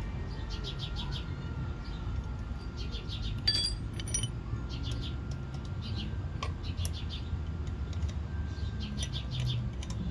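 Small birds chirping in short repeated bursts, with a sharp ringing metal clink of a wrench against steel a little over three seconds in and a lighter clink just after four seconds.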